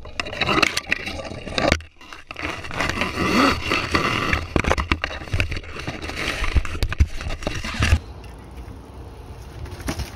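Tree branches cracking and leaves scraping close up as a person in a harness crashes down through a tree: a dense run of snaps and scrapes. It gives way to a quieter stretch about eight seconds in.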